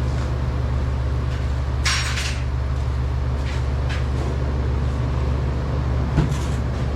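A few short metallic clanks and rattles, the loudest about two seconds in and another just after six seconds, over a steady low rumble.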